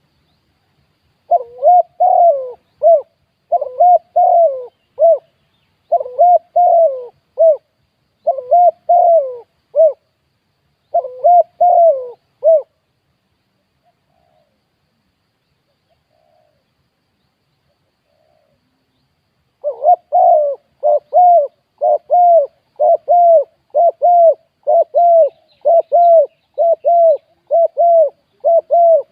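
Spotted dove cooing: phrases of several coos repeated about every 1.5 seconds, then, after a pause of about seven seconds, a faster unbroken run of coos.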